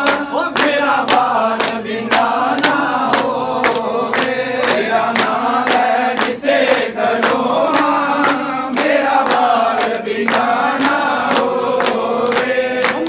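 A group of men singing a Punjabi devotional bhajan together in a chant-like unison, kept in time by a steady beat of hand claps.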